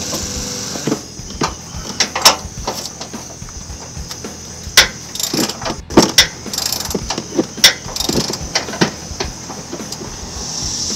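Hand wrench working a bolt on a truck's frame: many sharp metal clicks and clinks at an irregular pace.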